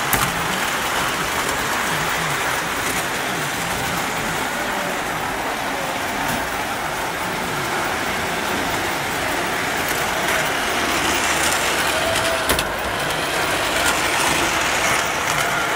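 Model trains and the animated amusement-ride models of a layout running: a steady mechanical whir and rumble with a few faint clicks.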